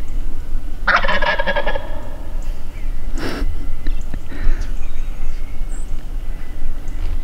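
Wild turkey gobbler gobbling once about a second in, a rapid rattling call lasting about a second. A steady low rumble runs underneath, and a short sharp noise comes a few seconds in.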